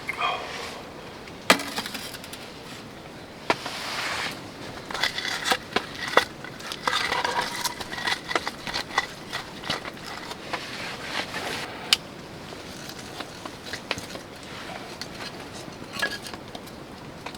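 Objects being handled, with irregular clicks, knocks and light clinks and some rustling, busiest in the middle stretch.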